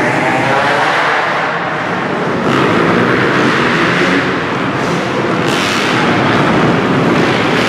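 A pack of motocross dirt bikes racing, their engines revving up and down through the turns, with louder surges at about two and a half and five and a half seconds in.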